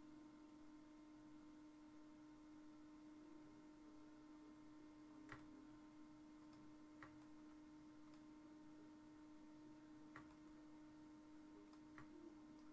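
Near silence: a steady low electrical hum, with a few faint, sharp clicks spread through it.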